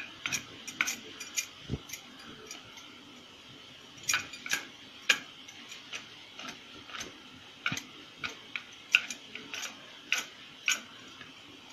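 Glass bangles clinking irregularly on the wrists as both palms roll dough into ropes on a wooden rolling board, with sharp clinks coming in quick clusters, and one dull knock about two seconds in.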